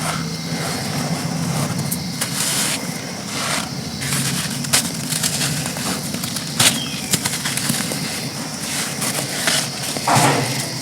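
Dry chunks of packed sand being crushed and crumbled, a continuous crisp crackling broken by sharp snaps, with a louder crunch near the end. A steady low hum runs underneath.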